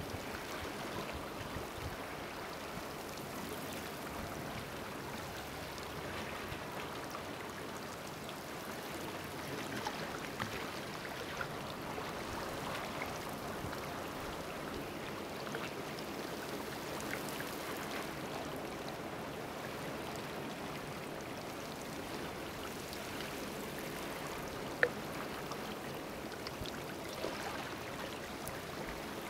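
Water trickling and lapping gently in a shallow, seaweed-filled rock pool on a rocky seashore: a steady watery hiss with faint scattered clicks, and one sharper click late on.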